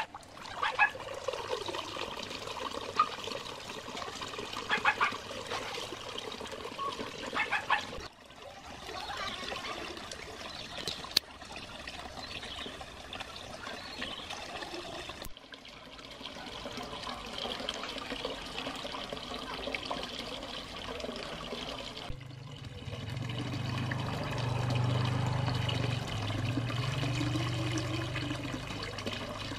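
Water spilling from a filter box's outlet into a cement fish pond: a steady splashing trickle. A low hum joins it about two-thirds of the way through.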